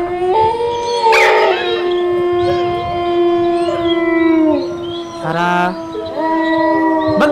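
Dogs howling: long, drawn-out howls overlapping at different pitches, the first sliding down and ending about four and a half seconds in, then a brief break and a new howl rising in.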